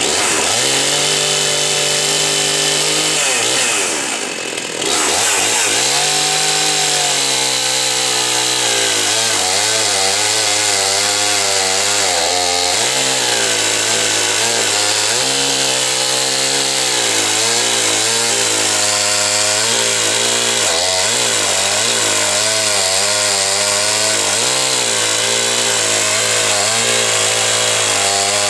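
Husqvarna 50 two-stroke chainsaw running at full throttle while cutting through a large log. The engine note wavers up and down as it loads in the cut, and it eases off briefly about four seconds in before picking up again.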